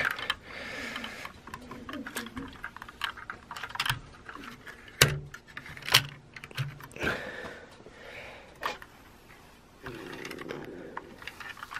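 Handling of a plastic toy tow truck and a die-cast model car as the car is lifted and hooked back onto the tow hitch: scattered light plastic clicks and knocks, with some soft rubbing.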